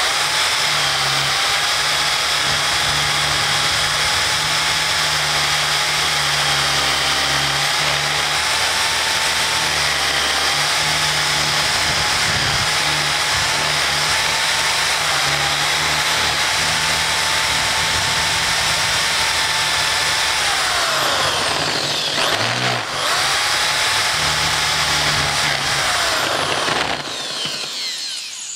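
Electric drill boring down through a stack of paperback books, its motor whining steadily as the bit shreds the paper. About two-thirds through it slows almost to a stop and speeds up again, then winds down and stops near the end.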